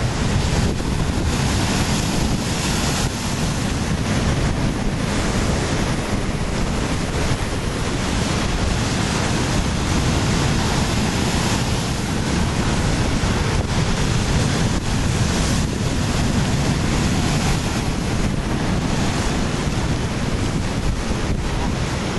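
Ocean surf breaking and washing over a rocky shore, with wind buffeting the microphone; a steady, unbroken rush.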